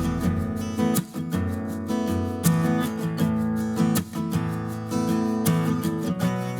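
Background music played on acoustic guitar, plucked and strummed chords at a gentle, steady pace.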